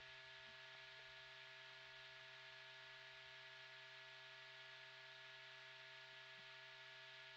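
Near silence: a faint steady hum with a few fixed tones over light hiss, the background noise of the old film soundtrack.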